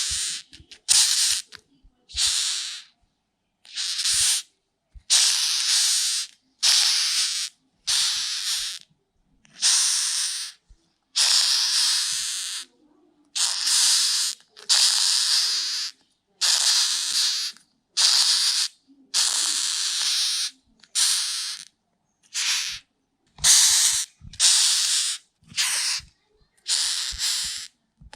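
Rhinoceros beetle hissing in short dry bursts, roughly one a second, each starting and stopping abruptly with silent gaps between, and faint low taps in the pauses.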